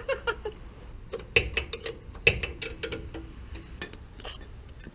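Hand wrench clicking and clinking on the CV axle flange bolts of a Toyota 7.5-inch IFS front differential. The metal clicks come irregularly, thickest and loudest in the middle, with two sharper clinks.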